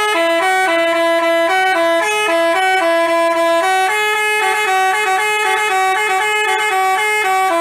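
Basuri telolet bus horn playing a tune of stepped notes that change several times a second, moving to higher notes about four seconds in.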